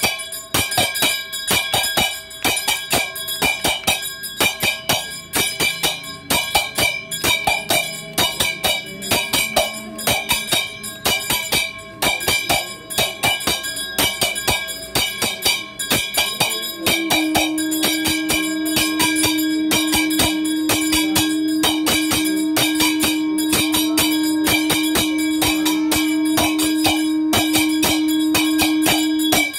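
Hindu temple bells ringing rapidly and without pause, with drum-like beats mixed in. About seventeen seconds in, a single long steady low tone joins and is held for about twelve seconds.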